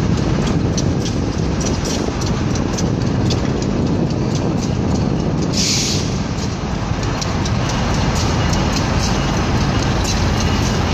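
VIA Rail passenger train passing: diesel locomotive engine running, with the wheels clicking over rail joints. A short hiss about six seconds in.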